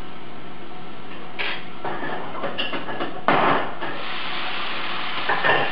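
String beans and mushrooms sizzling in a frying pan, with a utensil scraping and clattering against the pan several times as they are stirred; the loudest scrape comes a little past the middle.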